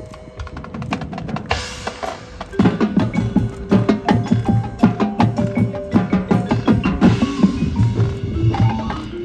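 Marching band percussion playing a busy rhythmic passage of drum and mallet-keyboard strikes, getting louder and denser about two and a half seconds in.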